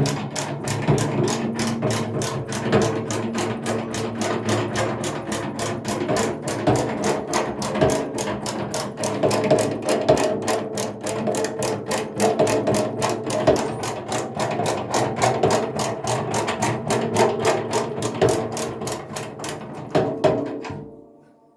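Rapid, even hammer taps on metal, about five a second, which stop shortly before the end.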